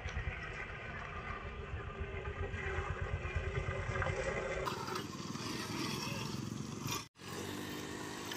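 Auto-rickshaw's single-cylinder engine running and pulling hard as the three-wheeler is driven in tight circles. The sound changes abruptly about four and a half seconds in and drops out briefly near seven seconds.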